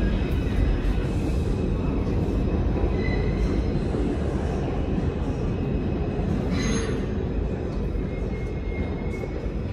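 Bombardier R142 subway train pulling out into the tunnel, its wheels rumbling on the track and slowly fading as it goes. Faint thin wheel squeal comes through, with a brief hiss about seven seconds in.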